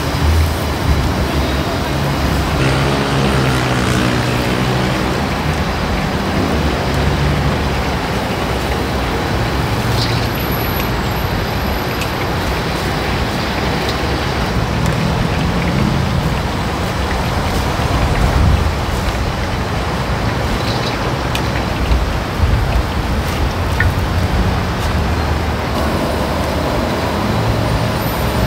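Battered potato pieces deep-frying in woks of oil, a steady sizzle over a continuous low rumble, with a couple of light clicks.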